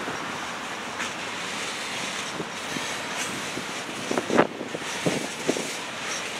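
Freight train rolling by: steady rail noise with wind on the microphone, and a few sharp clanks from the cars a little past four seconds in and again about a second later, the first the loudest.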